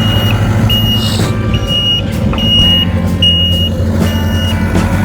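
Snow-clearing machine's reversing alarm beeping steadily, about six even beeps that stop near the end, over its diesel engine running.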